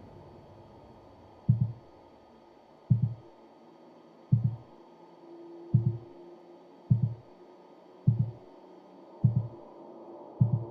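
Heartbeat sound effect: eight deep double thumps, about one every second and a quarter, quickening slightly, over a faint low hum.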